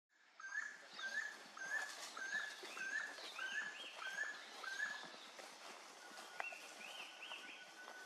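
Forest birds calling. One repeats a short call about eight times, a little over one a second, stopping about five seconds in, while another gives rising notes twice. From about six seconds a steady thin high tone holds on.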